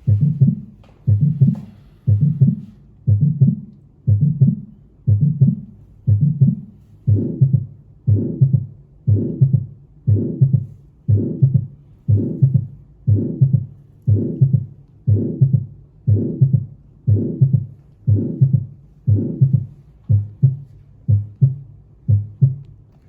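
Heart sounds from an auscultation recording: a steady heartbeat at about one beat a second, each beat a low thump with a short tail. The beats sound somewhat fuller through the middle stretch.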